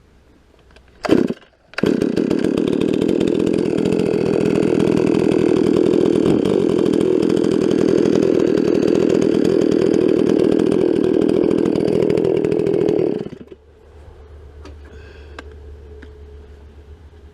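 Stihl 046 Magnum two-stroke chainsaw with a 24-inch milling bar starting up with a brief burst about a second in, then running loud and steady at high speed. Near the end it drops to a much quieter low idle.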